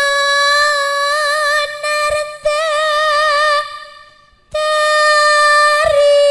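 Slow Javanese campursari song: a single high melody line held in long notes, wavering with vibrato in places, with a brief break about four seconds in and only faint accompaniment underneath.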